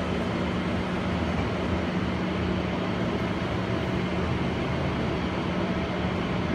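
Steady running noise of a cable-hauled BART Oakland Airport Connector people-mover car in motion, heard from inside the car, with a constant low hum under it.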